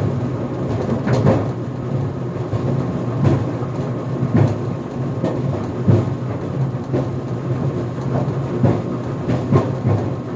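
GE Profile Harmony clothes dryer tumbling on its cooldown cycle: a steady low rumble from the drum, with irregular bangs about every one to two seconds. The owner is not sure which part is making the banging.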